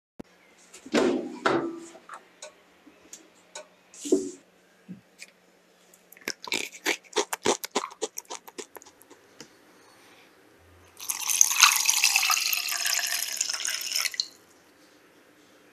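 Crisp baked cheese crackers crunching, a quick run of sharp crackles, followed by water being poured from a glass jug into an enamel saucepan in a steady splashing stream for about three seconds, which stops sharply.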